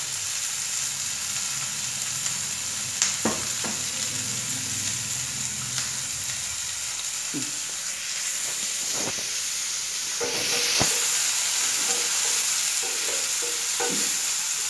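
Onion, tomato and green chillies sizzling in oil in a frying pan on a gas burner, a steady hiss, with a few short clicks and knocks of utensils, the sharpest about three seconds in.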